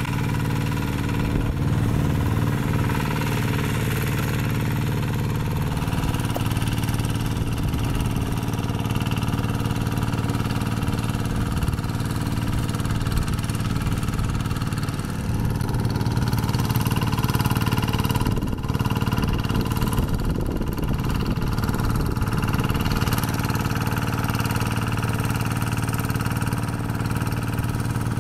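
Kubota RD110Di-2T 11 hp single-cylinder diesel on a Quick Zena hand tractor running steadily while its paddle wheels work through a flooded rice paddy.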